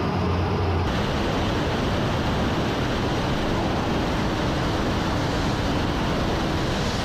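Su-34 jet in flight: a low steady drone in the cockpit, which about a second in gives way to an even, steady rushing noise of air and engine heard from a camera mounted outside the aircraft.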